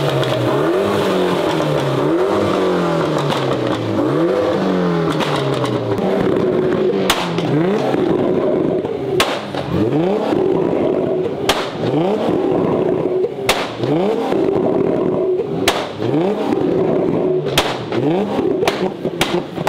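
A car engine revving hard over and over, its pitch climbing and dropping every second or two. From about a third of the way in, sharp pops cut in every couple of seconds.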